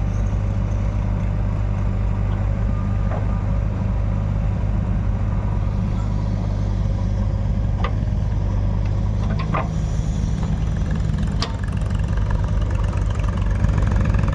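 Diesel engine running steadily at a low rumble, with a few sharp clanks through it and slightly harder running in the last couple of seconds.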